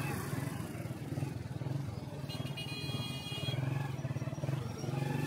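Motorcycle engine running steadily at low speed in slow traffic. A brief high steady tone sounds about two and a half seconds in and lasts about a second.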